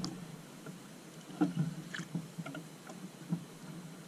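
Water lapping at the hull of a small outrigger boat over a steady low hum, with a few light, irregular knocks and clicks.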